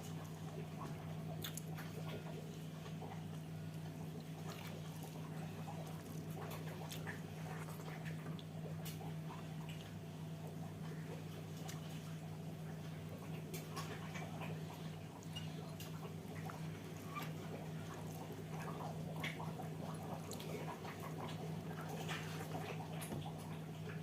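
A person eating: soft chewing and mouth sounds with many small scattered clicks, over a steady low hum.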